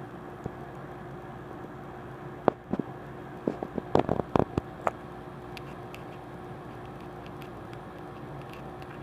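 Handling noise as an audio cable is fitted to an iPod Nano: a quick run of small clicks and knocks between about two and a half and five seconds in, then a few faint ticks, over a steady low hum.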